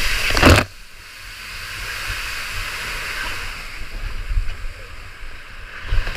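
Water rushing and spraying around a raft sliding down a water-coaster flume: a loud rush of water that cuts off suddenly about half a second in, then a steady hiss of spray and sliding water, with a short louder splash near the end.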